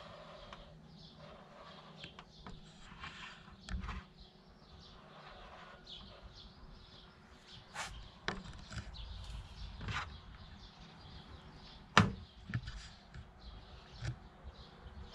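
Plastic drinks bottle with wired electronics handled and set down on a tabletop: scattered knocks and clicks of plastic. The loudest knock comes about twelve seconds in.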